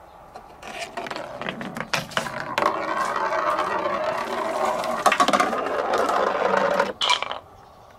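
A ball rolling along a marble run. It clicks over the plastic track pieces at first, then a steady rolling rattle with a ringing tone carries on along a rain-gutter chute and stops abruptly about seven seconds in.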